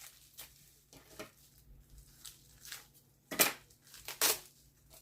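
Handling noise from unboxing packaging: light rustling and small clicks, with two louder rustles about three and a half and four and a quarter seconds in.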